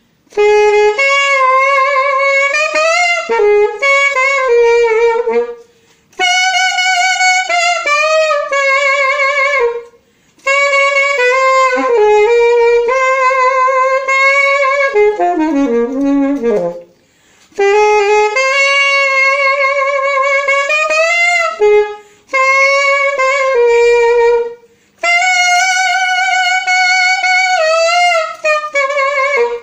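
Alto saxophone playing a jazzy passage in six phrases with short breaths between them, the held notes wavering with vibrato and many notes bent up and down in pitch, including a long falling bend about halfway through. It demonstrates note bending together with vibrato and active tonguing.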